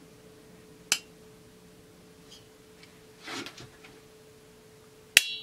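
Sharp metallic clicks as alignment pliers work a metal clamp onto a Husqvarna 350 chainsaw's intake. There is one click about a second in and a short scrape midway. A louder click near the end rings briefly, under a steady faint hum.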